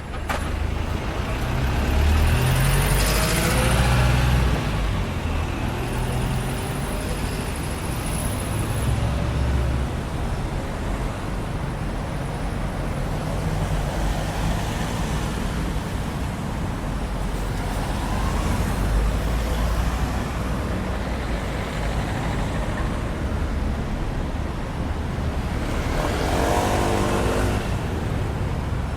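Busy street traffic: a continuous low rumble of engines and tyres, with vehicles passing close by about three seconds in and again near the end.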